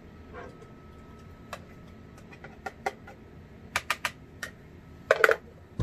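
Irregular light clicks and taps of soap-making utensils and containers being handled, about a dozen over a few seconds, with a louder knock near the end. A faint steady high hum runs behind.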